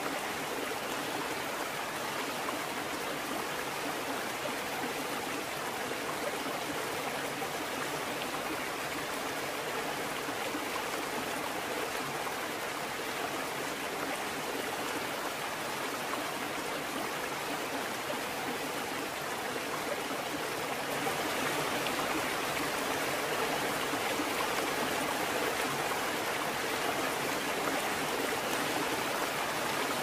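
Steady rushing water, a little louder from about two-thirds of the way through.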